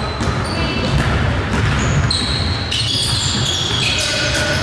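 Basketball game play in a gym: sneakers squeaking on the court in many short, high squeaks, with the ball bouncing, over the steady rumble of the hall.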